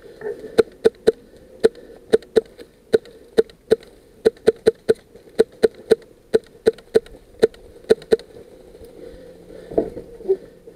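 VFC SCAR-L airsoft electric rifle firing single shots in quick succession, about twenty sharp cracks at two to three a second, stopping a little after eight seconds in. A softer knock follows near the end.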